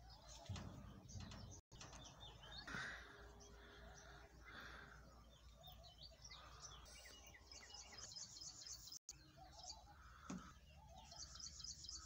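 Faint birdsong: several small birds chirping and twittering, with a fast high trill about seven seconds in and again near the end.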